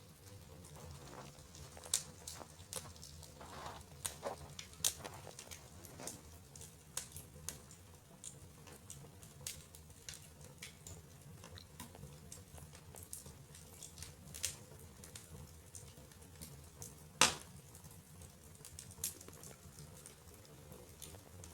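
Wood fire crackling in a fireplace: irregular sharp pops and ticks, one louder pop near the end, over a low steady hum.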